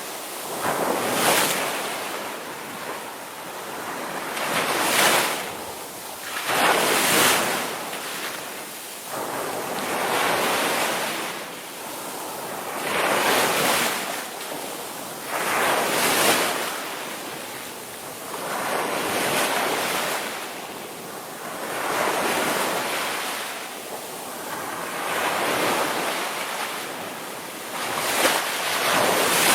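Ocean surf: waves breaking and washing up the shore, the rush swelling and fading about every two to four seconds.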